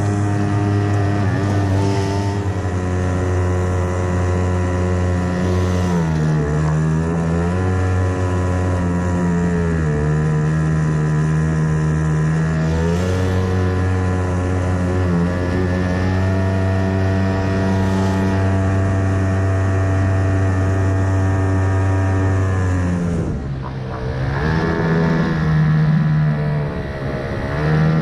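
Small boat motor driving a kayak-style skiff, running at a steady pitch. The revs dip briefly and come back up about six seconds in and again around thirteen seconds, then drop almost to idle twice near the end as the throttle is eased off and opened again.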